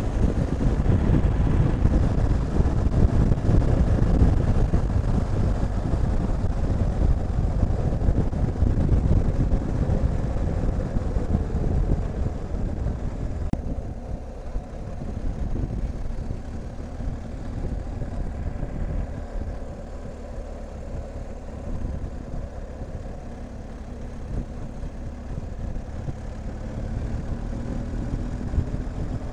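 Wind rushing over the camera microphone, with a BMW R1250 GSA's boxer-twin engine running underneath as the motorcycle rides along. The noise drops noticeably a little under halfway through, and a faint rising engine note comes in near the end.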